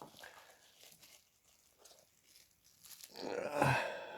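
Faint rustling and crinkling of packaging as a boxed mobile phone set is handled, with a louder, longer rustle about three seconds in.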